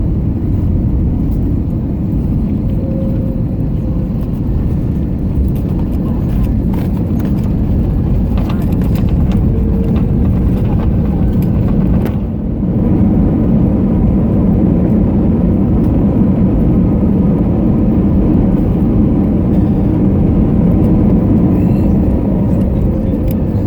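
Steady low rumble of airliner cabin noise inside an Airbus A321neo, with a short break about twelve seconds in where the footage is cut.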